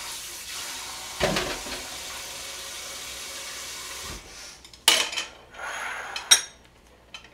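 Kitchen tap running into the sink, with a knock about a second in; the water shuts off about four seconds in. A ceramic bowl and chopsticks then clink several times as they are set down on the counter and plate.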